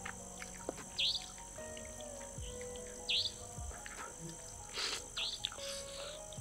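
Night insects keep up a steady high buzz, and a short falling chirp repeats about every two seconds. Small clicks of eating and a slurp of noodles come about five seconds in.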